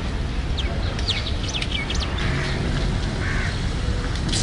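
Birds chirping: a quick run of short, high calls in the first two seconds and another near the end, over a steady low rumble.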